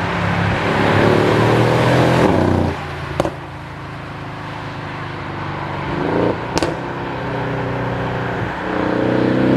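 Mercedes-AMG GLE 63 S Coupe's twin-turbo V8 exhaust, its note rising and falling several times as the engine is worked, with a couple of sharp short cracks between the pulls.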